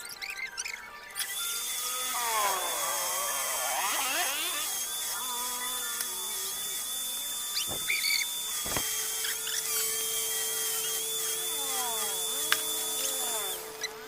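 A power tool runs steadily for about twelve seconds, a dense hiss with a high, slightly wavering whine, starting about a second in and cutting off near the end. Squeaky rising and falling chirps sound over it.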